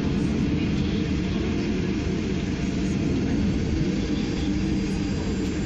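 Steady rumble of an airliner's engines and rolling noise heard from inside the cabin as the plane moves along the runway.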